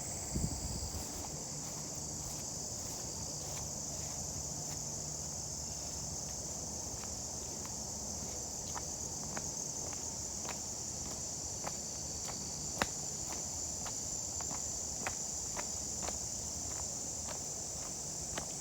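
Steady high-pitched insect chorus, with footsteps falling at nearly two a second from about halfway through.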